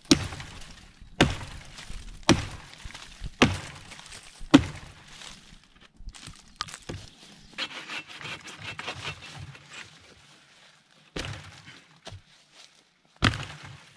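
Hatchet chopping into a fallen tree trunk: five sharp wooden chops about a second apart, followed by quieter scraping and rustling and a few more knocks near the end.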